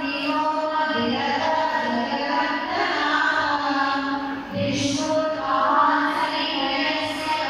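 Devotional chanting sung by a group of voices with musical accompaniment, in the manner of a kirtan.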